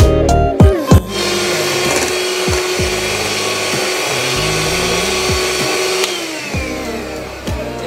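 Electric hand mixer running steadily as its beaters whisk cake batter in a glass bowl. It starts about a second in and stops about six seconds in, with background music underneath.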